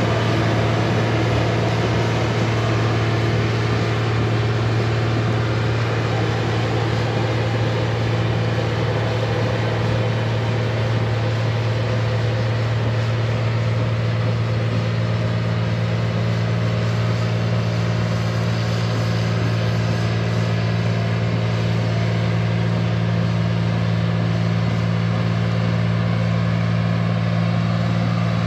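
Heavy equipment's diesel engine running at a steady speed: a constant low drone that holds the same pitch and level throughout.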